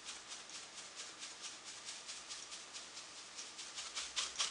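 Turning ceiling fan blades sweeping across a hand-held cleaning brush, each pass over the bristles giving a swish: a rapid, even swishing about six or seven times a second as the blades are dusted.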